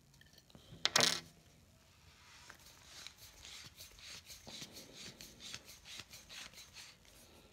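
Handling noise: a sharp knock about a second in, then several seconds of quick light rubbing and scraping with small clicks, as metal parts are handled on a table.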